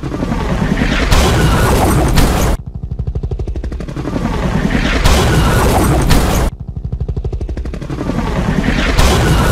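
Helicopter crash sound effect: rotor blades chopping in quick even beats, building up, then a loud crash and explosion boom lasting about a second and a half that ends with a sharp bang. The same loop comes round three times, crashing about a second in, about five seconds in and about nine seconds in.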